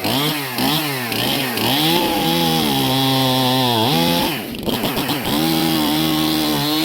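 Stihl MS 271 two-stroke chainsaw running just after a cold start: the throttle is blipped several times, then held at high revs, dipping briefly about four and a half seconds in before being held up again.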